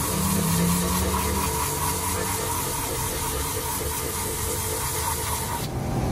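Rotary tire buffer with a rasp disc grinding the surface of a rubber tire patch, a steady whine with a rasping scrape, roughening the rubber so the patch will bond. The whine cuts off shortly before the end.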